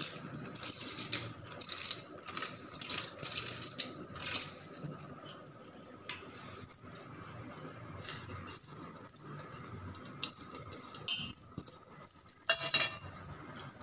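A steel spoon scraping and clinking against a steel plate and a metal cooking pot as boiled rice is tipped off the plate and spread in a layer. There is a run of quick clinks and scrapes for the first few seconds, then scattered ones.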